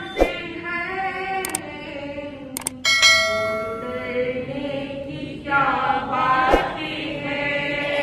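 Women singing a Jain devotional bhajan in a slow, chant-like melody. About three seconds in, a single metallic ring sounds and fades over about a second. A few short clicks come through the microphones.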